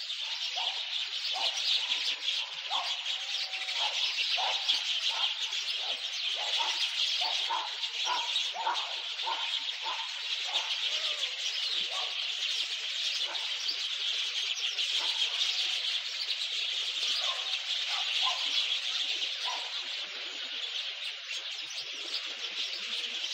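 A chorus of many birds chirping and singing, dense and continuous, with short lower calls repeating over and over through the first half.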